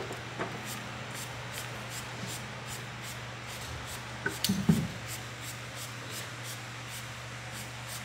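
A brief knock and clatter of handling, about four and a half seconds in, as a plywood board and plastic spray bottle are handled. Under it runs a steady low hum with faint, evenly spaced ticks.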